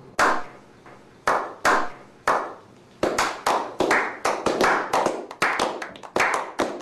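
A small group of people doing a slow clap: single hand claps about a second apart, each with a short ringing tail, quickening about three seconds in to steady clapping at roughly three to four claps a second.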